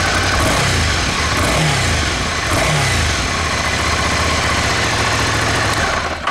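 Ducati Scrambler Icon's 803 cc air-cooled L-twin idling on its stock exhaust, with two brief throttle blips about one and a half and two and a half seconds in. It is switched off with the key right at the end.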